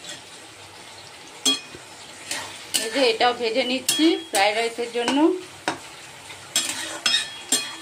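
Vegetables and cashews sizzling in a metal kadai while a metal spatula stirs them, scraping and knocking against the pan several times. A warbling pitched sound runs for about two seconds midway through.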